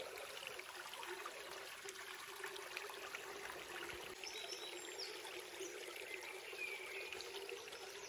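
Shallow woodland stream trickling steadily over stones, with a few faint high chirps near the middle.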